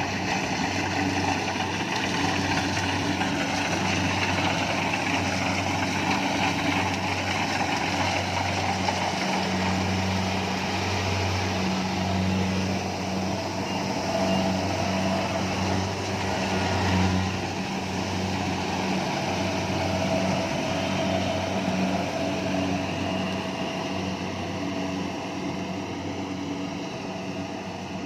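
Kubota rice combine harvester's diesel engine running steadily under load, with the clatter and whir of its harvesting machinery; the sound eases off slightly near the end.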